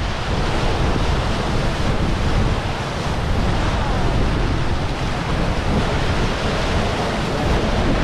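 Steady rush and splash of water breaking at a ship's bow as it moves through the sea, with wind buffeting the microphone.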